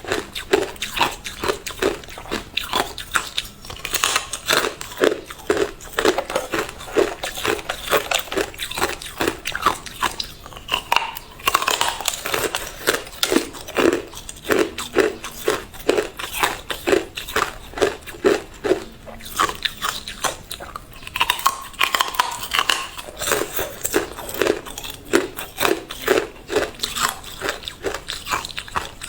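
A person biting and chewing hard, clear ice close to the microphone: sharp crunching cracks over a steady chewing rhythm of about two bites a second.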